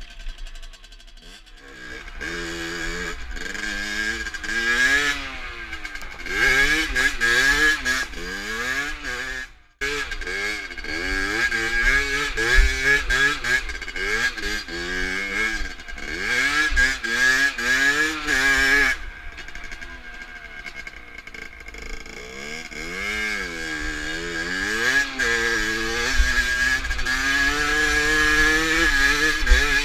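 Rieju MRT supermoto's engine accelerating hard through the gears, its pitch climbing then dropping at each shift, over and over. The sound breaks off for a moment about ten seconds in.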